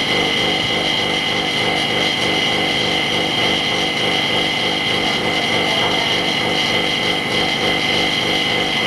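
A small machine running steadily with a constant high-pitched whine.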